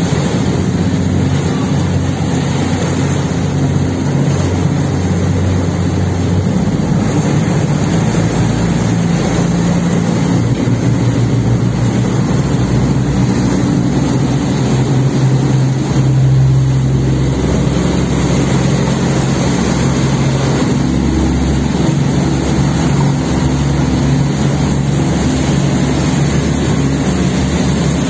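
A ro-ro ferry's twin diesel engines running steadily over the rushing and churning of propeller wash alongside the hull as the ship pulls away from the pier. The engine note shifts about six and again about eleven seconds in.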